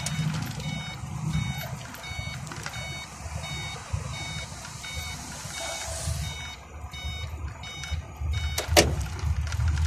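Iveco truck's engine and road rumble heard inside the cab while driving, with short electronic beeps repeating at a high pitch. One sharp knock near the end.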